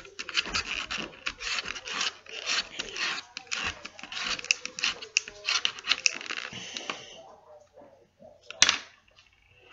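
Fingertips rubbing quickly over a stick of soft chalk pastel, a rapid dry scratching that stops about seven seconds in. A single sharp click follows near the end.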